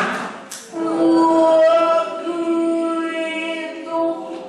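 A woman singing into a microphone, holding a long, steady note for about three seconds.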